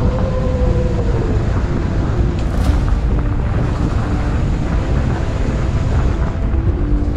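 Mountain bike rolling fast down a gravel track: steady rumble of tyres on loose gravel mixed with wind buffeting the rider's camera microphone.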